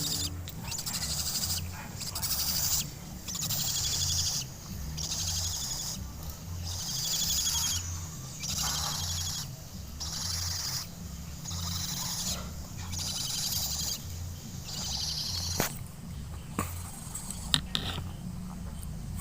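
Barn owl chicks giving their hissing, screechy begging calls, one drawn-out hiss about every second, the typical food-begging sound of owlets. The calls die away near the end, and a few sharp clicks come in.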